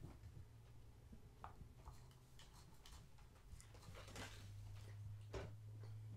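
Near silence: room tone with a steady low hum, a few faint ticks, and a soft rustle about four seconds in.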